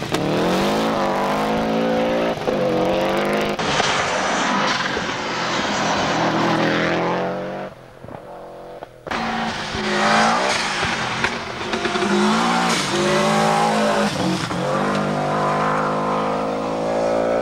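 Subaru rally car's turbocharged flat-four engine revving hard through the gears at speed. The pitch climbs and drops back with each shift. It goes quieter for about a second near the middle, then another hard-revving pass follows.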